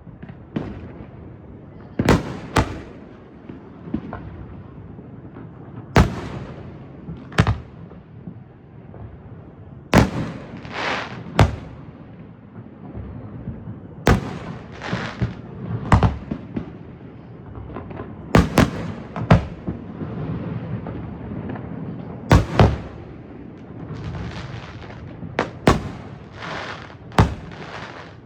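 Aerial fireworks bursting in a steady barrage of sharp booms, one every second or few seconds and sometimes in quick pairs. Stretches of hiss and crackle follow some of the bursts.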